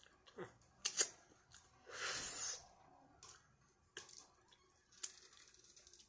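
Close, wet mouth sounds of someone eating and licking his fingers: chewing and sharp lip smacks, loudest about a second in, with a short hiss about two seconds in.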